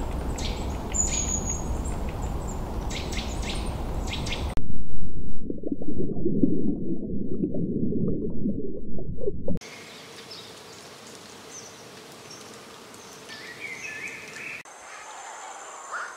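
Added nature ambiences that change with each cut. First come bird chirps over a steady outdoor hiss. About four and a half seconds in, a loud, muffled underwater rush of water takes over for about five seconds. It stops suddenly and gives way to a quiet stretch of faint chirps, with a steady high whine near the end.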